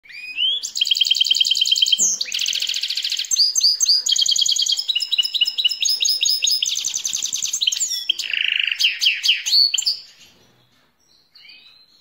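Goldfinch × canary hybrid (mule) singing a loud, fast, varied song of rapid repeated trills and rolling phrases, breaking off about ten seconds in, with a few soft notes near the end.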